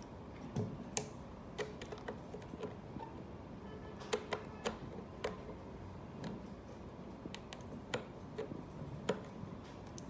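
Irregular sharp metal clicks and taps, roughly one or two a second, from a T-wrench turning a chainsaw's chain-tension adjustment screw to tighten a chain that is still loose.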